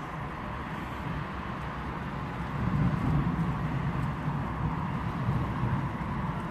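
Road traffic: cars passing on a nearby road, a low steady rumble that swells for a few seconds in the middle.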